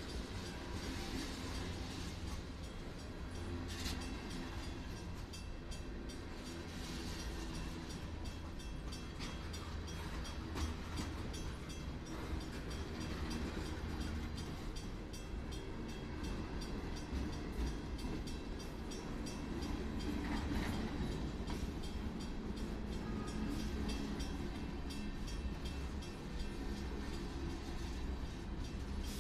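Freight train of tank cars rolling past at close range: a steady rumble of steel wheels on the rails, with scattered clicks and clanks from the cars.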